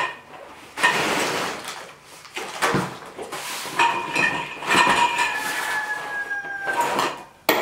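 Cardboard packaging rustling and scraping with a few knocks. Then chrome-coated steel table legs slide out of their cardboard box, scraping against each other with a metallic ring that slides slightly lower in pitch for about three seconds.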